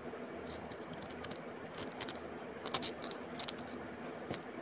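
Scattered clicks and scrapes of kitchen utensils over a steady low hiss, with a cluster of sharper clicks a little past halfway.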